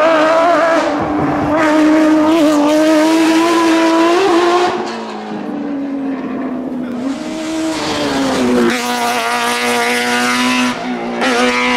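Rally cars at full throttle. A Porsche 911 GT3 rally car's flat-six engine is held high, drops sharply about five seconds in and then climbs again. Near the end another rally car's engine is revving hard.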